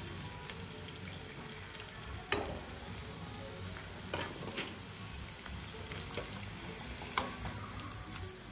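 Oil sizzling steadily as cabbage fritters deep-fry in a steel kadai, with a few sharp clicks of a steel slotted spoon against the pan, the loudest a little over two seconds in. The fritters are fried crisp and being lifted out.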